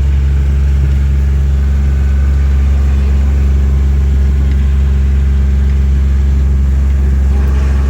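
A vehicle engine running at a steady speed, a low even drone.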